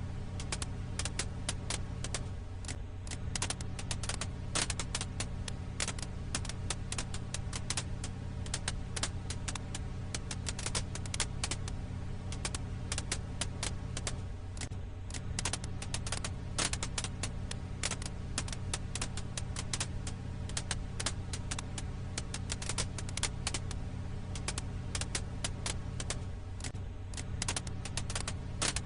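Crackling wood fire: a dense, irregular run of snaps and pops over a steady low rumble, looping about every twelve seconds.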